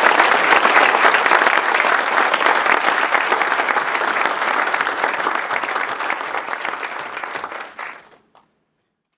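Audience applauding: dense clapping that slowly fades, then cuts off abruptly about eight seconds in.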